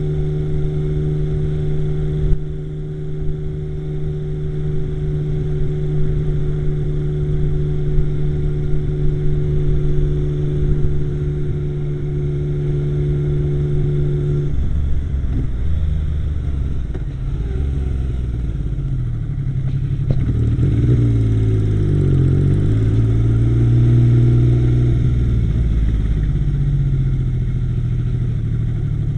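Yamaha XS850 inline-three engine running at a steady speed, then revved up and down several times from about halfway through before settling back to a steady run near the end. The owner suspects an occasional misfire.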